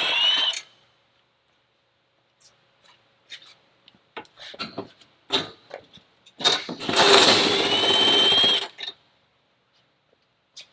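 A power tool fitted with an E14 inverted Torx socket, running in two bursts to spin out fasteners under the car, with a rising motor whine. The first burst ends about half a second in, and a longer one of about two seconds comes in the middle. Light metal clicks and clinks of the tool and socket fall between them.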